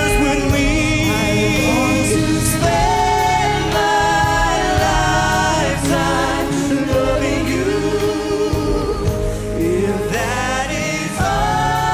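A slow pop ballad sung as a duet by a man and a woman, with long held notes, backed by a live orchestra with strings and backing singers.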